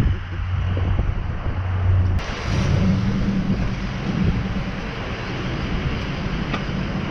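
A motor vehicle running, a steady low drone with road or wind noise over it; the sound changes abruptly about two seconds in, as at a cut, becoming brighter and noisier.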